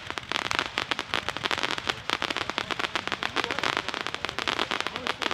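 Shockwave 666-shot Gatling gun firework cake firing its shots in a fast, dense run of sharp pops and crackles, many per second without a break.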